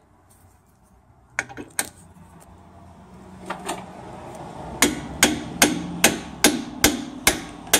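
Hammer tapping a metal driver cup to drive a new rubber suspension bush into a front wishbone (lower control arm) eye. A few light taps come first, then from about halfway a steady run of sharp metallic strikes, about two and a half a second.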